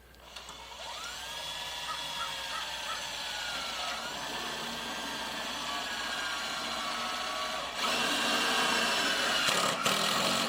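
Cordless screw gun spinning up and running steadily as it drives a self-tapping screw into sheet metal. It grows louder for the last couple of seconds as the screw bites, then stops.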